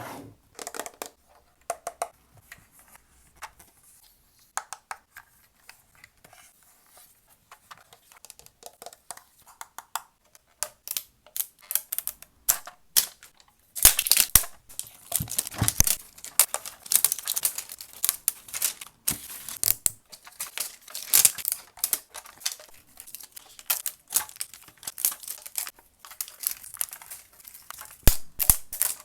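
Toy packaging being handled, crinkled and torn open during an unboxing: scattered rustles and clicks, sparse at first and much busier from about halfway through.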